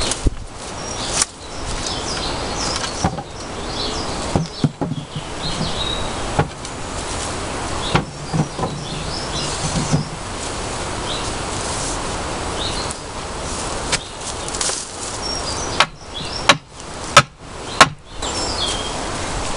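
Wooden battens and posts being handled and knocked into place while building a timber frame: scattered sharp wooden knocks, with three hard knocks close together near the end. Birds chirp over a steady outdoor hiss.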